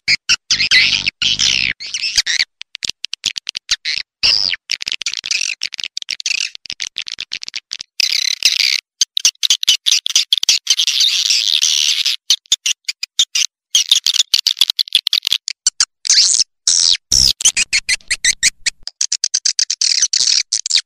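Swiftlet call sound: dense, rapid, high-pitched chirping and twittering of swiftlets in runs broken by short, abrupt gaps, the kind of call played to lure swiftlets into a nest house. A brief low thump comes near the end.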